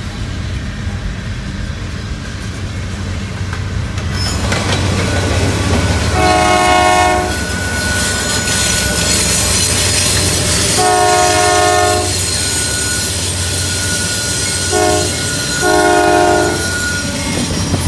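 Norfolk Southern Dash 9 freight locomotive's horn sounding the grade-crossing signal: two long blasts, a short one and a final long one, over a steady low rumble.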